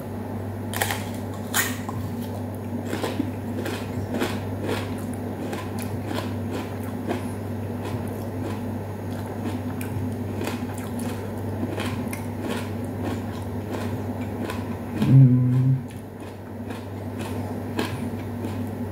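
A person biting into and chewing a firm, unripe green fruit: many sharp crunching clicks of the bites and chewing, over a steady low hum in the room. About 15 seconds in there is a short low voiced "mm", the loudest moment.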